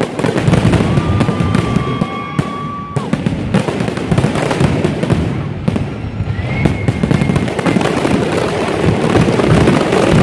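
Grand finale of an aerial fireworks display: a dense, continuous barrage of many shells bursting and crackling at once. Two high whistles are held for a second or two each, one about a second in and another about six seconds in.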